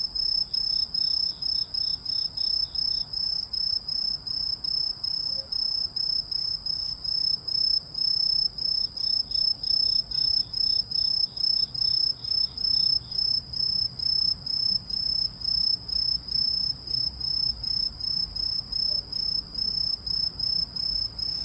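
A singing insect of the cricket and katydid kind, calling with a steady run of short, high, evenly spaced chirps on one pitch, two or three a second.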